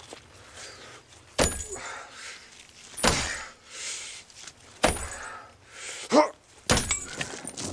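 Four heavy blows, about one every one and a half to two seconds, each with a short rattling clatter after it. A brief wavering tone comes just before the last blow.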